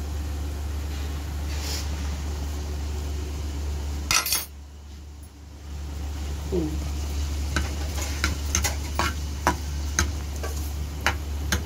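Tempering oil sizzling in a small steel frying pan as ginger, green chillies, curry leaves and dried red chillies go in for a tadka. There is a brief clatter about four seconds in, and from about halfway on a metal spoon clicks and scrapes against the pan as it stirs.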